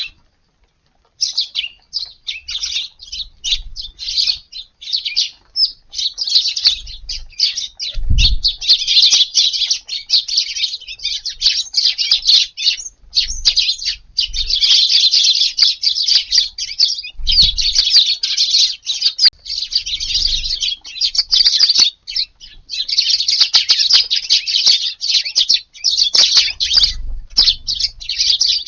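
A flock of Eurasian tree sparrows chirping busily, many short calls overlapping, nearly without pause after a brief silence at the very start. A few soft low thumps come through under the chirping.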